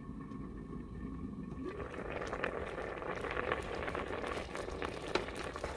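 Partly cooked rice boiling in an Aroma electric rice cooker, most of its water cooked off: bubbling and popping that grows louder and busier with many small crackles about two seconds in.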